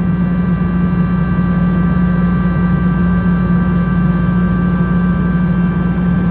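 Atlas Copco GX7 rotary screw air compressor, driven by its 10-horsepower electric motor, running steadily: a constant loud hum with a few faint steady high tones above it.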